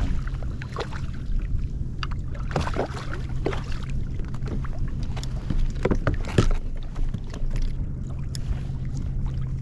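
Water moving against an anchored kayak, with irregular knocks and clicks throughout.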